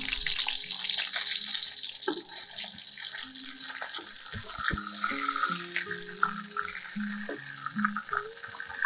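Whole fish frying in hot oil in a steel wok: a steady loud sizzle full of small crackles and spits as oil is ladled over the fish.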